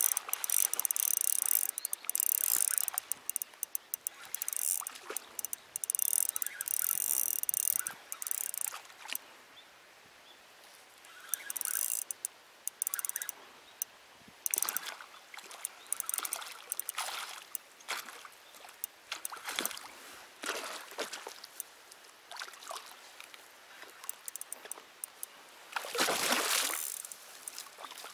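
Water trickling and flowing, broken by bursts of high hiss with rapid clicking, strongest in the first few seconds and again near the end.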